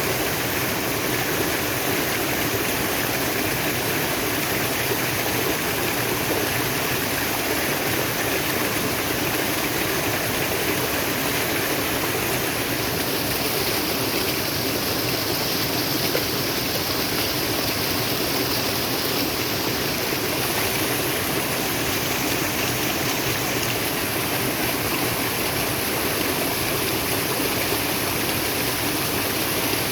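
Flowing water, a stream running steadily over rocks.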